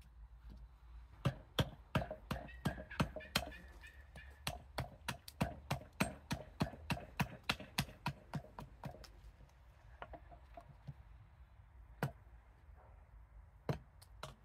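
Fadir 860 g carving axe chopping into an ornamental cherry spoon blank held on a chopping block: a quick run of sharp wooden knocks, several a second, for about eight seconds, then two single chops near the end.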